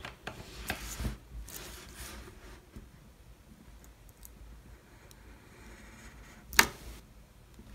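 Hobby knife cutting window panes out of a clear plastic kit sheet on a cutting mat: light scraping and clicking strokes, busiest in the first couple of seconds, with one sharp click a little before the end.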